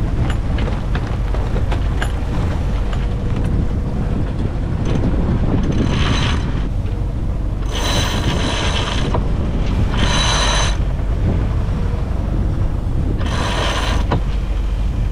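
Sailboat sheet winch ratcheting in four short bursts as lines are hauled during a sail change, over a steady rush of wind on the microphone.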